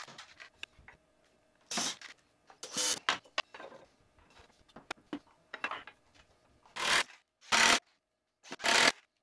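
Wooden chair slats being handled and slid into place on a wooden frame: a series of short rubbing and knocking sounds with quiet gaps between them, the loudest ones in the second half.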